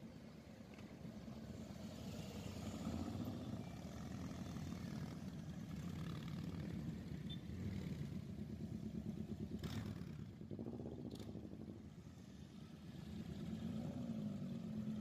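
Several motorcycles riding past one after another at low speed, their engines a faint, pulsing low rumble that swells as each bike goes by. Two short clicks come about ten and eleven seconds in.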